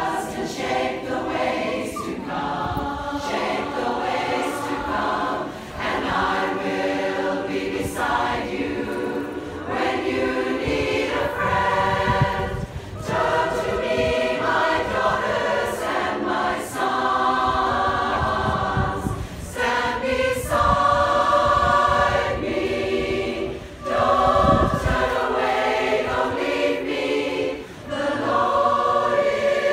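Mass women's barbershop chorus of several hundred voices singing a cappella in close harmony. The chords are held in long phrases, with short breaks between them every few seconds.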